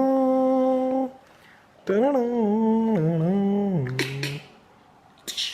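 A voice humming a slow melody in two long phrases of held notes that slide between pitches. Near the end come two short, sharp, hissy bursts.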